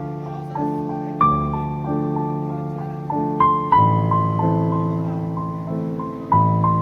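Background music: a slow, gentle piano melody, single notes and chords struck about every one to two seconds and left to ring.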